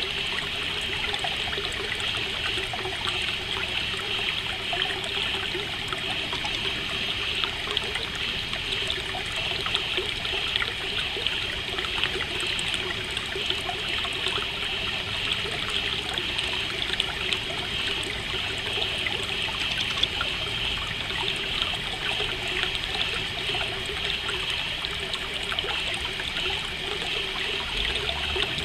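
Running water trickling steadily, with a continuous high chirring of crickets over it.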